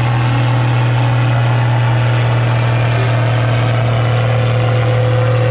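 Engine idling steadily, a loud, even low hum.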